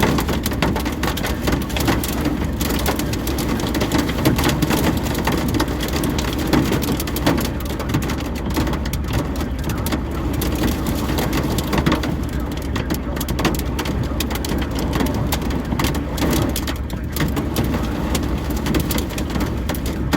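Heavy rain and hail pelting down in strong wind: a loud, steady roar of rain with a dense patter of sharp hits.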